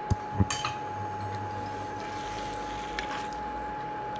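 Steel spoon stirring thick egg masala in a stainless steel pan: two sharp clinks of metal on the pan near the start, then quieter wet stirring with one light tick about three seconds in. A steady thin high hum runs underneath.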